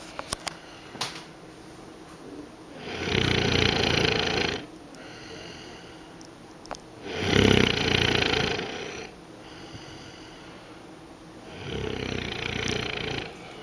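A woman snoring in her sleep: three loud snores, each about a second and a half long and roughly four seconds apart. A few faint clicks come near the start.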